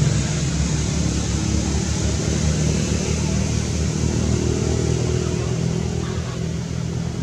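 A steady low drone like a running engine, fading a little near the end.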